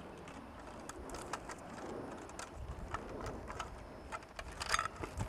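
Scattered small clicks and rustles of wire splices and a plastic security-light fixture base being pushed up into a junction box, with a brief louder scrape near the end.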